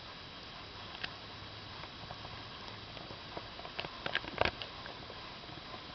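Teething Pomeranian puppy gnawing on a hard chew or toy: scattered small clicks and scrapes, coming thick and fast for a moment about four seconds in.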